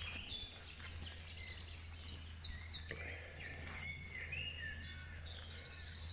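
Several songbirds singing at once, overlapping high chirps and phrases with two fast trills, one a little before halfway and one near the end, over a steady low hum.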